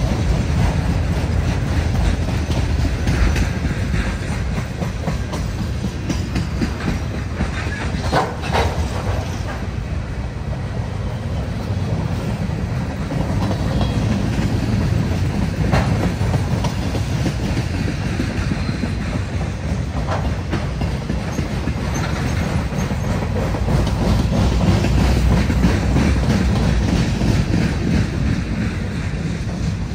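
Freight train cars rolling past: a steady rumble with rapid clickety-clack of wheels over the rail joints and a few brief clanks.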